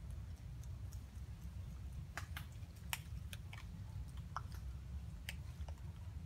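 Scattered small clicks from a long-tailed macaque grooming her infant's fur at close range, irregular and several a second at times, over a low steady rumble.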